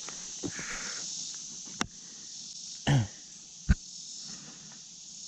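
Steady high-pitched chorus of insects. A few sharp clicks and a brief thump cut through it near the middle.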